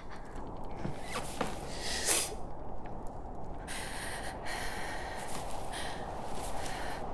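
A series of short, tense breaths and sniffs over a steady low background drone.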